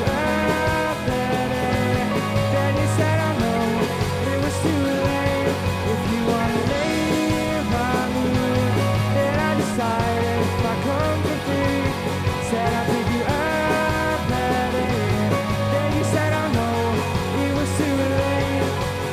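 Guitar-driven indie rock song played live by a band, running steadily with no break.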